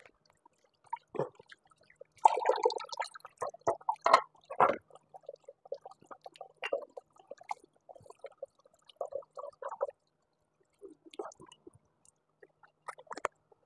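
Dishes being washed by hand at a kitchen sink: water splashing and a wok and utensils knocking and clattering irregularly, with a few sharper clanks about four seconds in.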